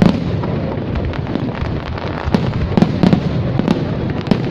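Aerial fireworks display going off continuously: a dense din of overlapping low bursts with many sharp cracks, more of them in the second half.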